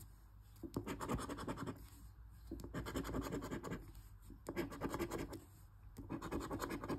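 A scratch-off lottery ticket being scratched in quick short strokes, in about four bursts with brief pauses between them.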